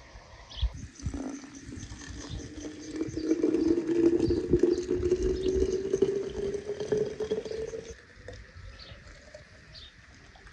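Water poured from a kettle into a tall glass bottle, its pitch rising steadily as the bottle fills; the pour stops abruptly about eight seconds in.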